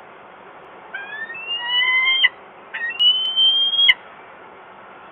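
Peregrine falcon giving two drawn-out wailing calls in quick succession, each rising slightly in pitch and cutting off sharply, over a faint steady hiss.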